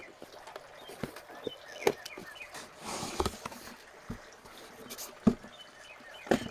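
A long cardboard shipping box being opened by hand: the flaps are pulled apart and the plastic-wrapped contents handled, giving scattered knocks and clicks and a short rustle about three seconds in.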